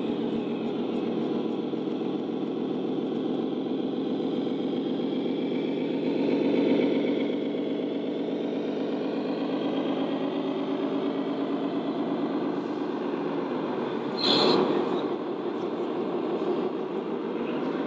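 Radio-controlled Scania truck's diesel engine sound, played by its sound module, running steadily as the truck drives slowly, swelling briefly about six seconds in. A short loud burst of noise cuts in about fourteen seconds in.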